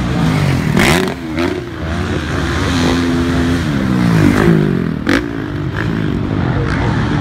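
Motocross dirt bike engines revving up and down as the bikes ride past close by, pitch rising and falling with each burst of throttle. A few sharp clicks, the strongest about five seconds in.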